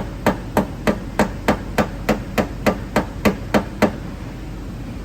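About a dozen quick, evenly spaced hammer taps on the sheet-metal body panel of a 1995 Mustang GT, about three a second, stopping about four seconds in: metal being tapped during dent repair.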